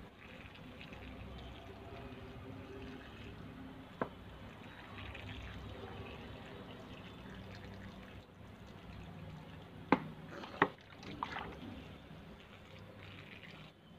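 Water poured from a plastic bottle onto sandy potting soil in a plastic pot, a soft steady trickle as the soil soaks it up. A single sharp click about four seconds in, and a cluster of louder sharp clicks around ten to eleven seconds in.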